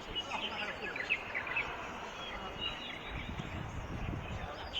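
Outdoor urban ambience with small birds chirping repeatedly, busiest in the first couple of seconds, over a steady background hum and a low rumble in the second half.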